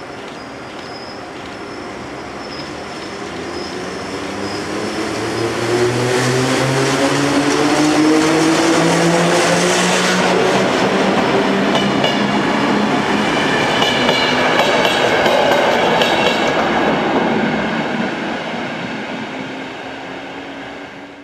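An E 656 electric locomotive hauling passenger coaches passes close by. The rumble of wheels on rail builds, holds for several seconds, and then fades as the coaches go past. The locomotive's motor hum slides down in pitch as it passes.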